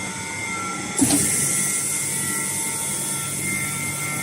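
Double-chamber vacuum packing machine starting its cycle: a knock about a second in as the chamber lid comes down, then the vacuum pump running with a steady hum and a loud hiss of air being drawn out of the chamber.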